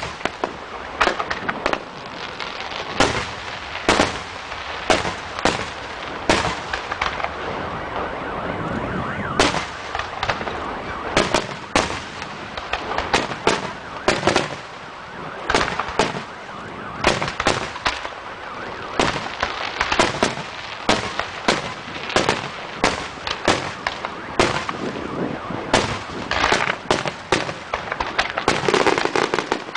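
Aerial fireworks shells bursting in rapid, irregular succession: many sharp bangs over continuous crackling.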